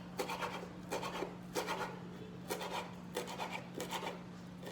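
Knife chopping fresh parsley on a cutting board: irregular short scraping strokes, about two a second, over a steady low hum.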